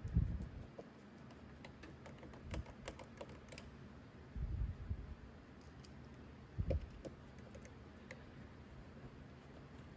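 Light, irregular clicks and taps of a metal concealed cabinet hinge and screwdriver being worked as a screw is driven in by hand, with a few duller knocks against the cabinet.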